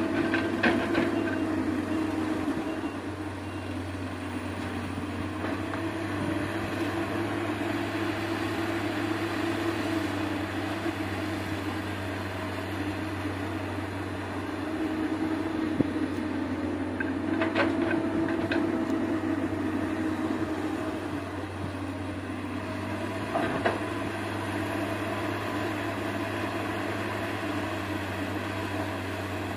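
Diesel engine of heavy earthmoving machinery running steadily, its drone swelling and easing every few seconds as the load changes, with a few sharp knocks.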